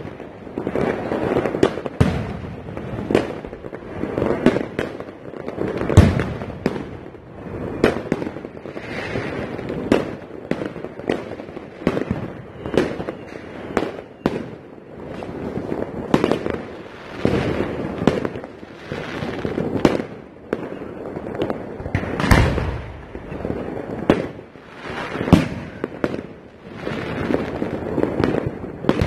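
Fireworks going off: a dense run of aerial shell and firecracker bangs at irregular intervals, with a constant din of further explosions in between. The loudest bangs come about six seconds in and about twenty-two seconds in.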